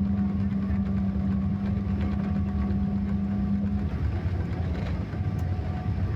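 An engine running steadily with a low rumble and a steady low hum; the hum stops about four seconds in.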